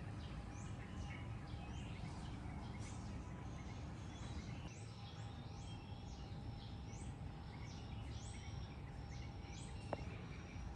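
Birds chirping in the trees, many short high calls repeating over a steady low hum of outdoor background noise. One brief click near the end.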